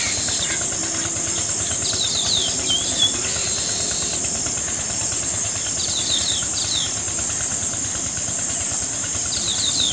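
Steady high-pitched chorus of crickets in the paddy fields, with short bird chirps in quick runs of three or four notes every few seconds, over a steady hiss.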